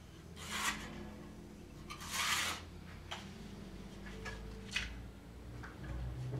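A spirit level scraping against a rough cement-rendered wall, twice: about half a second in and again near two seconds, followed by a few light taps and clicks as it is moved and set down.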